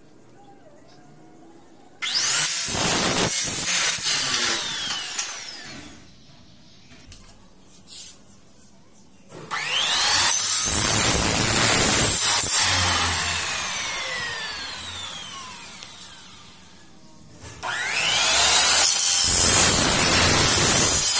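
Electric miter saw cutting aluminium window profile three times: each time the motor spins up with a rising whine, the blade screeches through the metal, and the blade winds down with a falling whine. A few small clicks sound between the first and second cuts.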